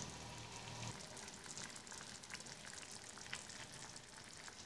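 Faint bubbling and popping of thick gram-flour (besan) chutney simmering in a pan, with small pops scattered through it.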